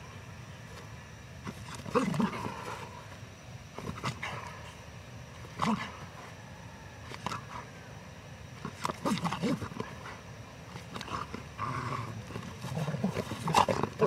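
Young Belgian Malinois growling in short bursts while tugging and gripping a toy, about nine growls spread through, the loudest near the end.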